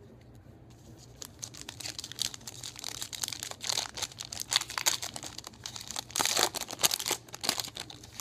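Wrapper of a Topps Finest trading-card pack being torn open and crinkled by hand. A dense crackling starts about a second in and is loudest in the second half.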